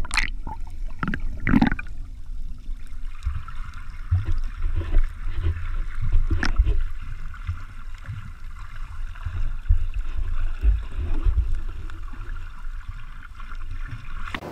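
Underwater sound of seawater heard through a submerged camera: splashing as it goes under in the first couple of seconds, then a muffled low rumble and gurgling of moving water with scattered soft knocks.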